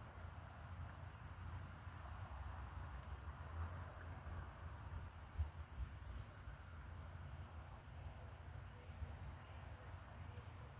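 Insects chirping in short high-pitched pulses, about one or two a second, over a faint low rumble.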